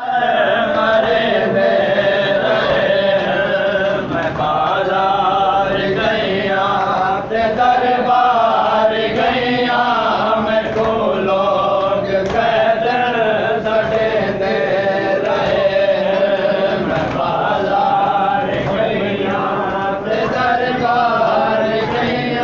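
A group of men chanting a noha, a Shia mourning lament, together in long sung phrases that carry on without a break.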